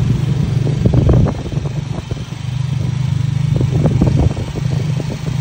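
A vehicle's engine running steadily at speed, heard from on board, with rattling and knocks from the vehicle that cluster about a second in and again near four seconds.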